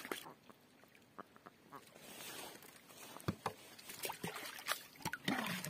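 A hand sloshing in shallow pond water, with scattered small splashes and drips.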